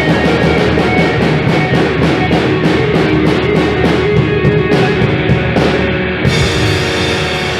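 Rock band music: drum kit and electric guitar playing with a steady beat of about four strikes a second. The drumming stops about six seconds in, leaving held chords ringing.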